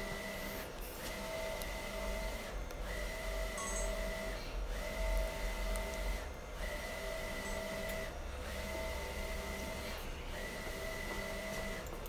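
Wide-format inkjet printer running, its print-head carriage sweeping across the media in a steady mechanical whir that breaks off briefly at the end of each pass, about every two seconds.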